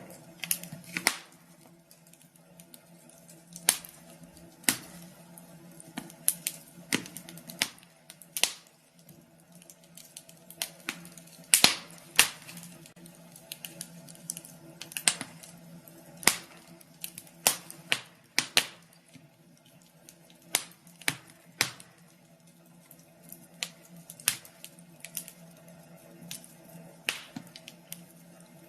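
Wood fire crackling in a fireplace: irregular sharp pops and snaps, the loudest cluster about halfway through, over a faint steady low hum.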